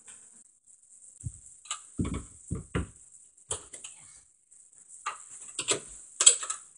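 Handling noise from a hand-held phone being moved about: a few soft thumps in the first three seconds, then scattered rustles and clicks.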